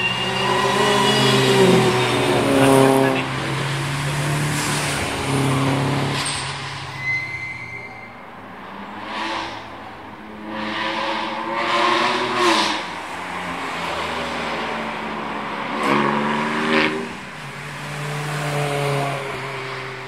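Track-day cars lapping the circuit one after another, engines revving hard with the pitch climbing through the gears and dropping at each shift, the sound swelling and fading as each car goes by.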